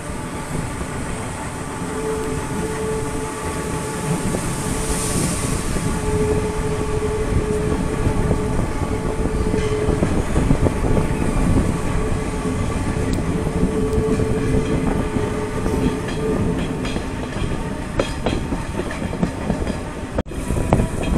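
Renfe Series 442 electric multiple unit running on the metre-gauge mountain line: a steady rumble of wheels on rail with scattered clicks, and a higher tone that comes and goes. The sound briefly cuts out near the end.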